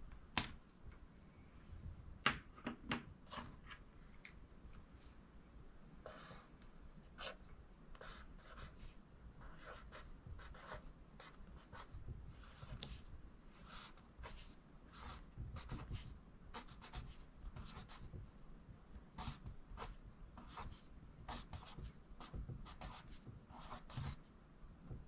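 Pencil writing on notebook paper: a run of short scratchy strokes as words are handwritten, starting a few seconds in. A couple of sharp clicks come before the writing begins.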